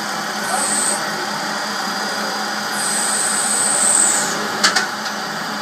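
CNC lathe running with its spindle turning a brass workpiece: a steady machine hum, with a high hiss as the tool cuts a groove into the brass, briefly about half a second in and again for about a second and a half in the middle. Two sharp clicks come close together near the end.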